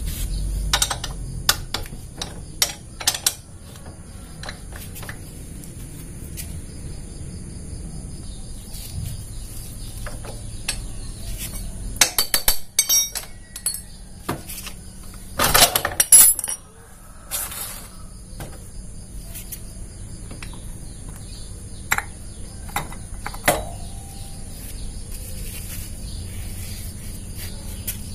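Short metallic clinks and clicks of hand work on a motorcycle's stock 35-tooth steel rear sprocket and its bolts as it is unfastened and taken off the hub, with two bursts of clattering about twelve and fifteen seconds in.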